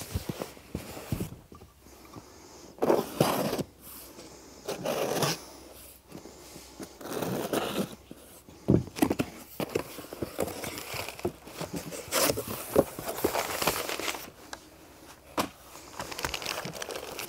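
Cardboard shipping boxes being handled and opened: irregular scraping and rustling of cardboard flaps and packing, with a few sharp knocks as boxes are set down on the table.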